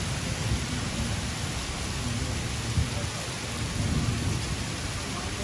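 Heavy rain pouring steadily onto the canal water, a dense even hiss with a low rumble underneath.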